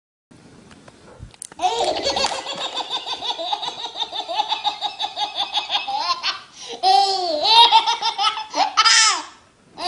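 A baby laughing hard, with long runs of rapid, breathless belly laughs that begin about a second and a half in. Two high squealing laughs that rise and fall in pitch come near the end.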